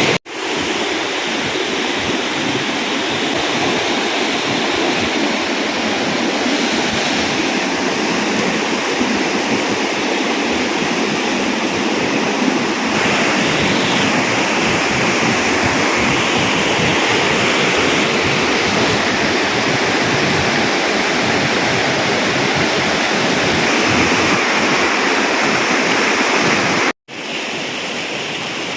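Waterfall pouring: a steady, loud rush of falling water, cut off to silence for an instant just after the start and again near the end.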